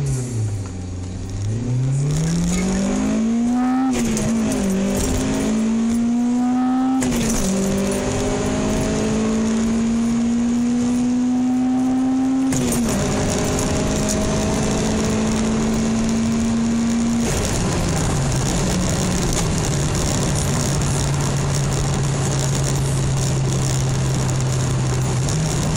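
Acura RSX Type-S's 2.0-litre four-cylinder engine under hard acceleration, heard from inside the cabin: its note climbs high, drops back at each upshift about 4, 7 and 12 seconds in, and climbs again. After about 17 seconds it falls away to a steady lower note.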